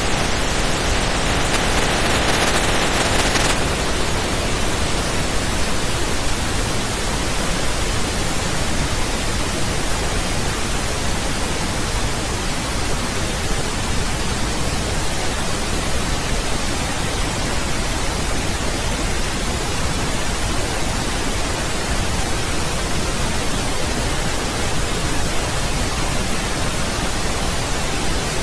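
Steady pink noise: an even, unbroken hiss spread across all pitches, a little brighter in the middle range for the first three seconds or so.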